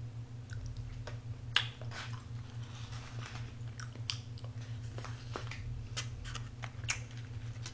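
A person chewing a mouthful of food close to the microphone, with scattered wet clicks and smacks, the sharpest about a second and a half in, over a steady low hum.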